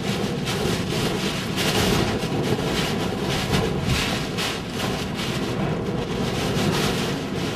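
Hurricane-force wind buffeting a moving car and rain lashing its windshield, heard from inside the cabin. It is a loud, dense rushing noise that keeps swelling and easing in gusts.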